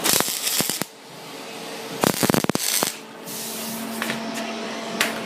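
Welder tack-welding a piece of steel stock in place: two short crackling bursts of about a second each, about two seconds apart, followed by a couple of brief clicks.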